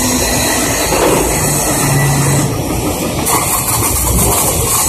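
Stick welding with a 1/8-inch 7018 electrode: the arc is struck about three seconds in and burns with a steady crackling hiss, over loud, steady shop background noise.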